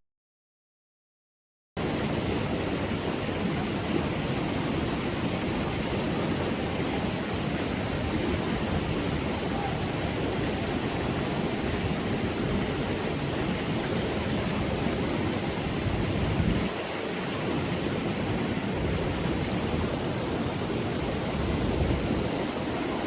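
Steady rushing of a valley stream's water over rocks. It cuts in about two seconds in, after a moment of dead silence.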